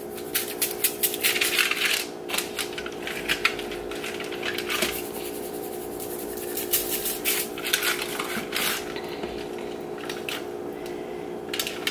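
Table salt shaken from a shaker onto a whole fish in a foil-lined baking dish: gritty, crackly patters in several separate bursts, mixed with light crinkling of the foil under the hands.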